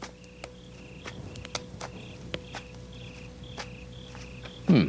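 Crickets chirping steadily in short, regular pulses, with scattered sharp clicks, and a man's brief low vocal sound near the end.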